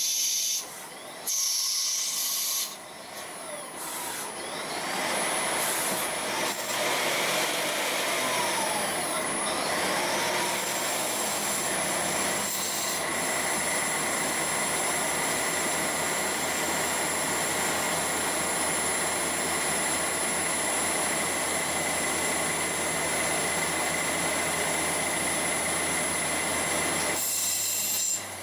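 CNC lathe turning a brass workpiece: steady machining noise of the spindle, cutting tool and coolant spray, with a hissing wash and a few steady high tones. Two brief drops in level come in the first three seconds, and a steady high whine comes in about ten seconds in.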